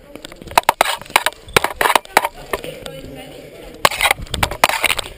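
Épée blades clashing and knocking against the metal bell guard, picked up by a camera mounted on the guard: rapid clattering clicks and scrapes in two flurries, one about a second in and a longer one around four seconds in.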